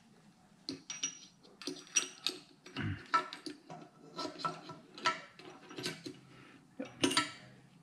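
Steel gearbox parts, the shift forks and gear shafts, clinking and tapping against each other and the aluminium crankcase as they are fitted by hand. The clicks are irregular, with a dull knock about three seconds in and a louder burst of clinks about seven seconds in.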